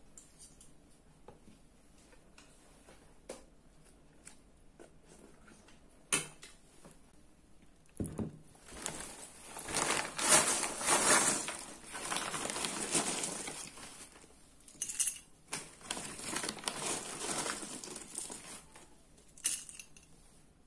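Faint clinks of a spoon and fork against a ceramic bowl. From about eight seconds in comes a long stretch of rustling, crinkling and clinking as a glass of ice cream is topped with chocolate cereal balls.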